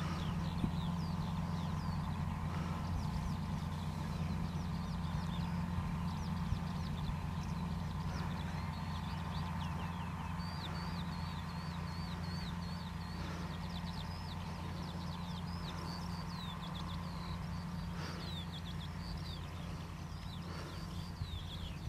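New Holland TM165 tractor's six-cylinder diesel engine running steadily under load while pulling a seed drill through the soil during sowing. Birds chirp over it, in quick runs of short calls.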